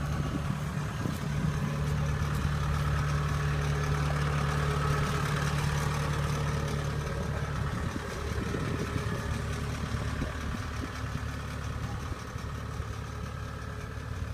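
Kubota DC-70 crawler combine harvester's engine running steadily: an even low hum with a fainter higher whine over it, easing slightly about eight seconds in.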